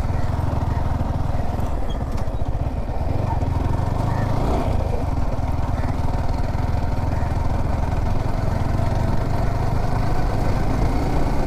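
Yamaha R15 V4's single-cylinder engine running steadily while the motorcycle is ridden.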